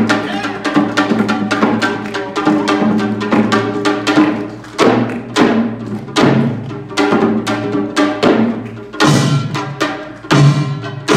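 Samulnori percussion: a fast, dense rhythm of janggu hourglass-drum and buk barrel-drum strokes with a small gong ringing through it, and heavier drum accents near the end.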